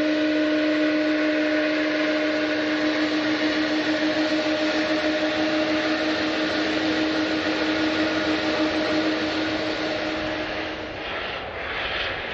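Jet airliner's turbofan engines running, a loud rushing noise with a steady high whine over it that fades out about eleven seconds in.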